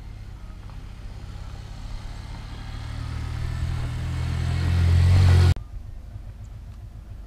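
A motor vehicle's engine growing steadily louder for a few seconds, then cutting off suddenly about five and a half seconds in.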